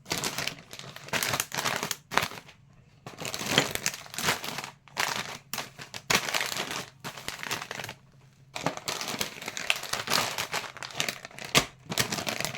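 Mashed potato packets crinkling as they are handled and packed into a container, in irregular rustling bursts with two short pauses.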